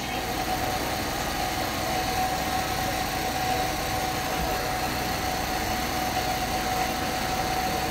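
Steady machine-like background hum and hiss with a faint, even high tone running through it, unchanging throughout.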